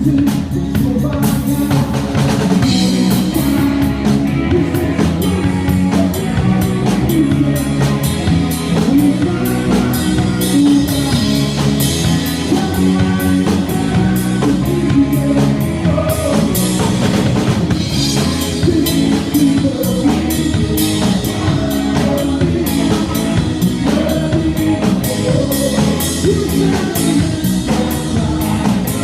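Rock band playing live, heard from on stage through the monitor mix: a drum kit keeps a steady driving beat under sustained bass and other instruments, with singing at times.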